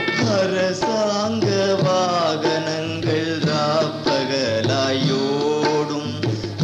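A Tamil song on the soundtrack: a male singer's voice with a wavering, bending melodic line over instrumental accompaniment and drums. The vocal line comes in right at the start, after held instrumental notes.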